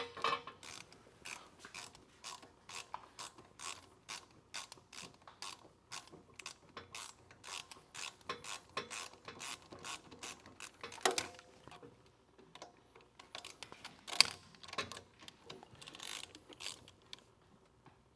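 Hand ratchet wrench clicking in steady strokes, about two or three clicks a second, as bolts are run down, with a couple of louder knocks about eleven and fourteen seconds in.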